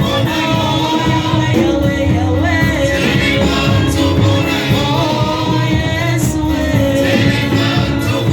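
Church worship music: voices singing a gospel song over continuous instrumental accompaniment.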